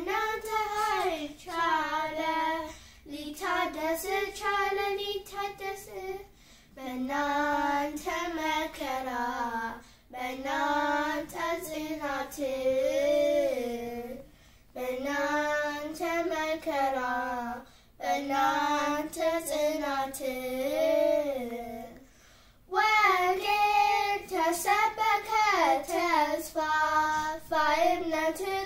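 Two young girls singing an Ethiopian Orthodox hymn to Saints Peter and Paul together, unaccompanied, in sung phrases of a few seconds each broken by short pauses for breath.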